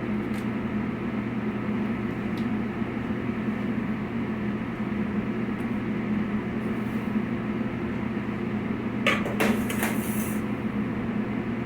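Steady hum of kitchen ventilation, with a couple of light clicks and a brief clatter of utensils and dishes about nine seconds in.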